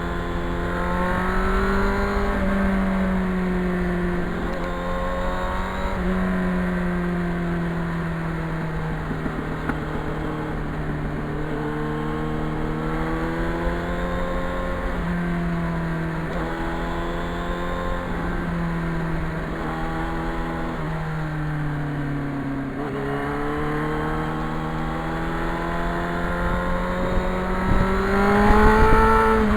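Yamaha FZR motorcycle's inline-four engine running on the road, its pitch rising under throttle and dropping back several times, then climbing to its loudest near the end. A low wind rumble runs under it.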